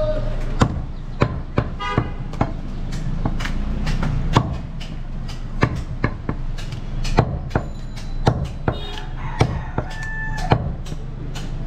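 Heavy butcher's knife chopping goat meat and bone on a wooden log chopping block: over a dozen sharp chops at an uneven pace, about one or two a second.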